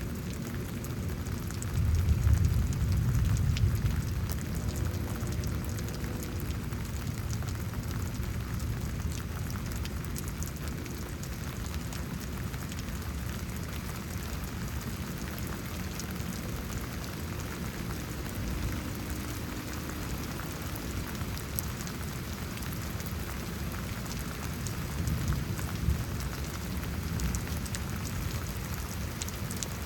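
Steady rain falling, with a low rumble of distant thunder swelling about two seconds in and a fainter one near the end.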